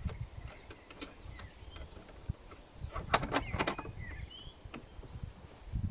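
Scattered clicks and knocks of hands working the parts of a new Makita MLS100N mitre saw, with a quick run of sharp clicks about three seconds in. Faint bird chirps come through now and then.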